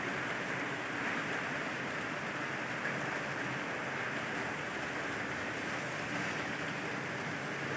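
Steady rain, an even hiss with no separate drops or passing vehicles standing out.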